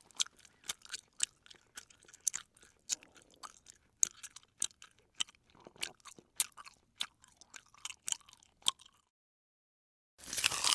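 A person chewing crunchy food, with a run of sharp crisp crunches about two or three a second. After a short pause, one loud crunching bite comes near the end.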